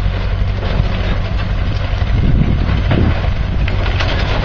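Steady low motor rumble with wind noise buffeting the microphone.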